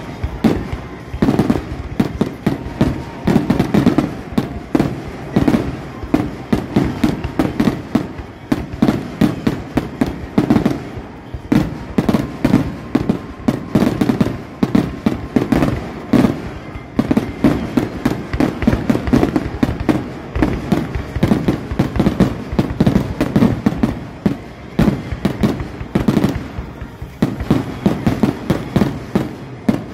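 Aerial fireworks display: a dense barrage of shells bursting one after another, with booming bangs and crackling, several a second throughout.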